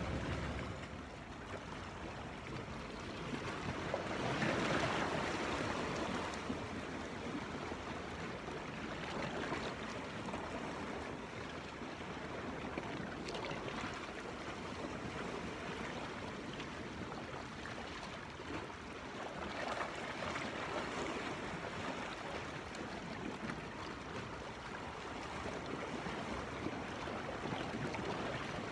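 Small sea waves washing against a rocky shoreline, a steady rush of water that swells louder twice, about four seconds in and again about two-thirds of the way through.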